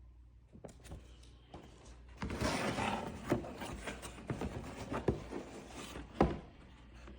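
Tools in a timing tool kit being handled: rubbing and scraping with several sharp clicks and knocks, starting about two seconds in.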